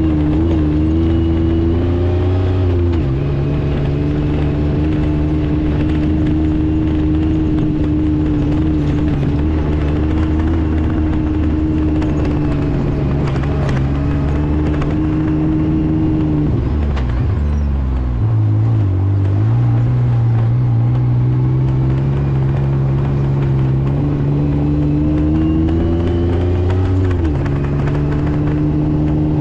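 Yamaha YXZ side-by-side's three-cylinder engine running under way. The pitch steps about three seconds in. Past halfway it falls away, then climbs steadily back up, with another step near the end.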